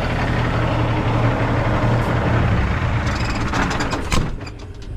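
Cummins ISX diesel idling with the oil fill cap off, blow-by puffing out of the fill opening. This is compression getting into the crankcase, which the owner takes as a sign the engine needs a rebuild. About four seconds in, the engine sound drops away with a click.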